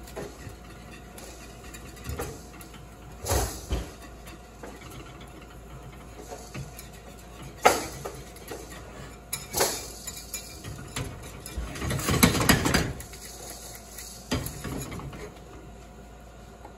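A flat wire whisk knocking and scraping against a small saucepan while mashed potatoes are whipped. The strokes come at first as scattered knocks, then as a quick, louder run of strokes about twelve seconds in.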